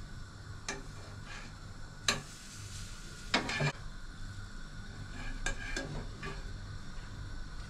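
Pancakes frying in a pan with a faint, steady sizzle, broken by a few sharp clicks and scrapes of a metal utensil against the pan as they are turned and lifted out.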